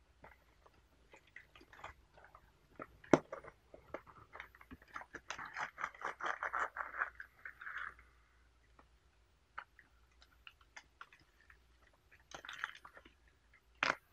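Foil tea pack and cloth drawstring bag crinkling and rustling as they are handled, with a sharp click about three seconds in and a dense stretch of crinkling from about five to eight seconds in.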